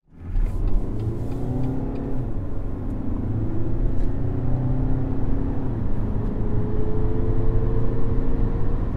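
BMW X1 20d's 2.0-litre four-cylinder diesel engine running under acceleration, its note rising in pitch over the last few seconds.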